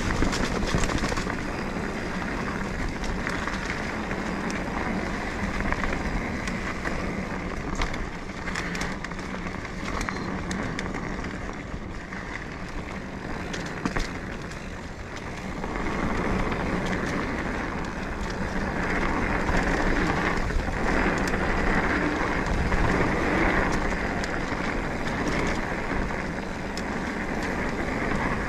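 Mountain bike rolling over a dirt singletrack trail: steady tyre and wind noise with scattered clicks and rattles, easing off midway and building again.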